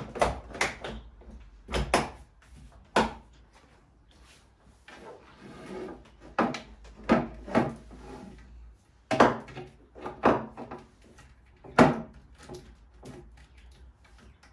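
Scattered knocks and clunks of hard objects being handled and set down, about a dozen over the stretch, with rustling and rubbing between them, as tools and a cordless drill battery are put away and onto charge.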